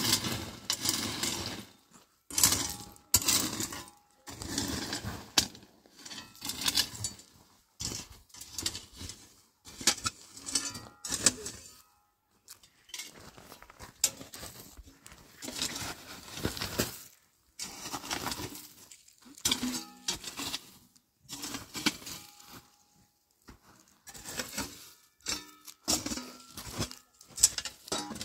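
Metal rake scraping through loose gravel and stones in repeated strokes, about one every second or so, the stones clinking and rattling.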